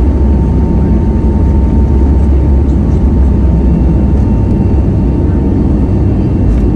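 Steady, loud jet-engine and airflow rumble inside an Airbus A321neo's cabin during the climb after take-off, with a thin steady whine above it.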